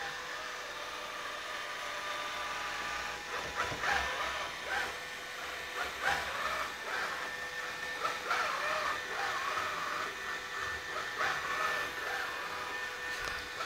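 Diunamai WD-G500 robot vacuum cleaner running on a stone tabletop: a steady motor hum and whine, with irregular rubbing and knocking as it drives and turns.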